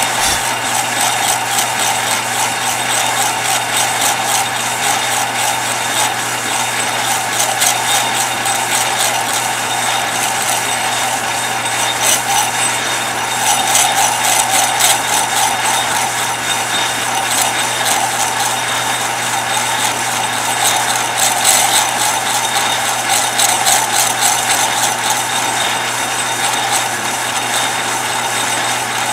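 An old metal lathe running steadily while its cutting tool turns a spinning brass rod, fed along by hand. A constant motor hum sits under a fast, even rattle of the machine.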